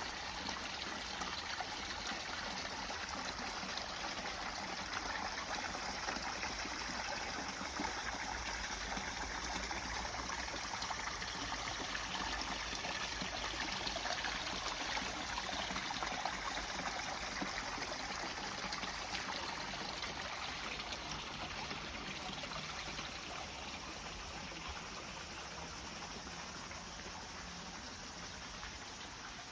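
Water running and trickling steadily, easing off gradually over the last several seconds.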